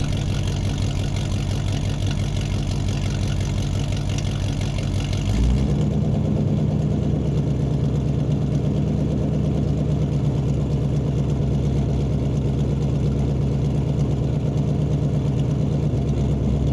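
A vehicle engine running steadily at idle. About five and a half seconds in it changes abruptly to a different, lower, duller engine hum, which then runs on steadily.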